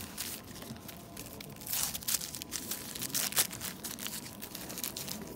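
Red wrapper of a pack of firecracker strings being torn and crumpled open by hand: irregular crinkling and tearing, loudest about two seconds in and again past the middle.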